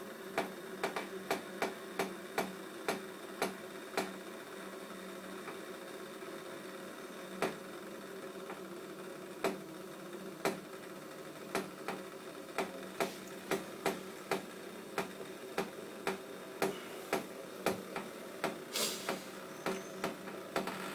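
Sharp metallic ticks, often two or three a second and irregular, from a methylated-spirit pop-can tripod stove and its pot heating up over the flame, over a steady hum, with a brief hiss near the end. The ticking may be coming from inside the pot, from the aluminium stove starting to give under the heat, or from the steel tray underneath expanding; the owner cannot tell which.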